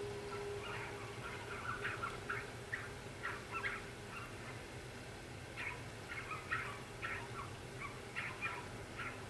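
Loaded coal hopper cars rolling past: a steady low rumble with many short, irregular high-pitched squeaks over it.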